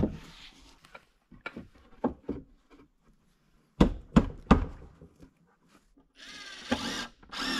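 Wooden thunks as half-log slabs are knocked into place against a log wall, with a cluster of three sharp knocks about four seconds in. Near the end, a cordless drill runs twice in short bursts, driving screws into the logs.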